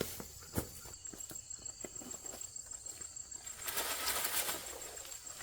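A steady high insect chirr, likely crickets, with scattered knocks and clicks, a sharper knock about half a second in, and a second of rustling or scraping near four seconds in.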